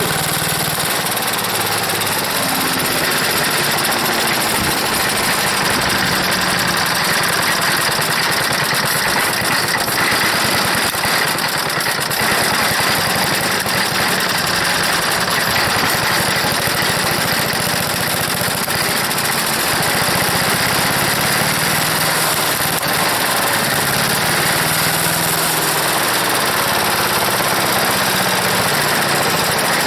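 Old Briggs & Stratton gasoline engine on a wood chipper running steadily and loud. The owner thinks its carburetor has a bad float.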